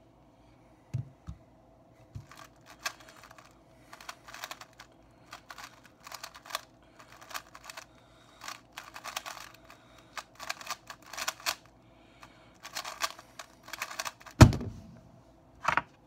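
Stickerless 3x3 speedcube turned rapidly by hand: clusters of quick plastic clicks and clacks in bursts, with short pauses between them, during a timed speedsolve. About 14.5 seconds in, one loud slap as the hands come down on the timer to stop it.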